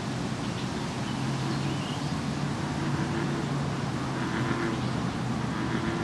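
Steady rumble of distant road traffic, with the hum of engines rising and fading underneath.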